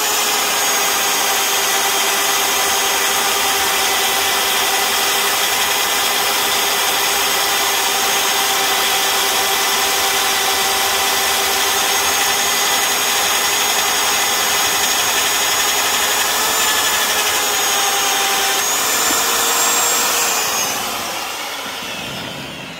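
Rotabroach Element 30 850 W magnetic drill's motor running steadily under load, with a steady whine, as its oil-lubricated annular cutter bores through a steel guide rail. Near the end the pitch rises briefly, then the motor winds down and stops.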